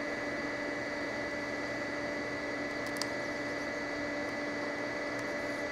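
Hot-air rework station blowing steadily: an even rush of air with a constant fan hum and whine, heating a display-driver chip until its solder melts. A faint tick about three seconds in.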